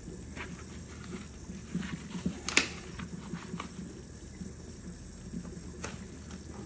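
Tap water running into a stainless steel sink, with wet rubber gloves rubbing and slapping under it and one sharp click about two and a half seconds in.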